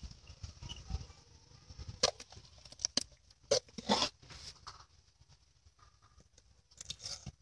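Scattered gritty scrapes and rustles of gloved hands and a tool working damp sand while shaping a mould for a mini bonsai pot. A few sharper scrapes come between about two and four seconds in and again near the end.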